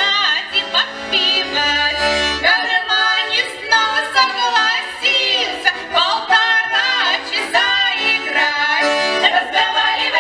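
Women's folk choir singing a Russian folk song with sliding notes, accompanied by a bayan (button accordion).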